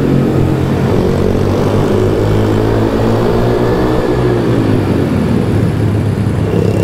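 Small single-cylinder pit bike engines running hard at high revs, heard from on board with a second bike close by. The engine note dips and picks up again about halfway through.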